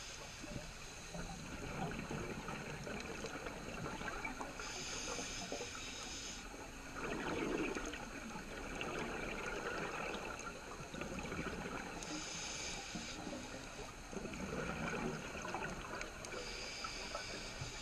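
Scuba diver breathing through a regulator underwater, heard through the camera housing. A hiss comes three times, each followed by a burst of bubbling, over a steady muffled wash of water.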